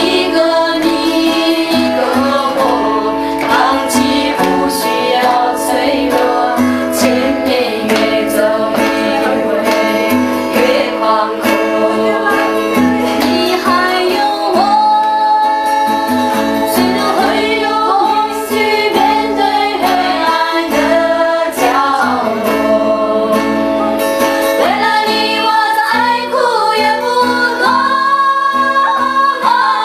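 A small group of women singing a song together, accompanied by a strummed acoustic guitar.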